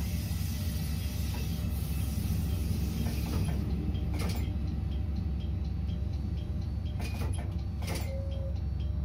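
Train running along the track, heard from the driver's cab as a steady low rumble, with a few sharp clicks partway through.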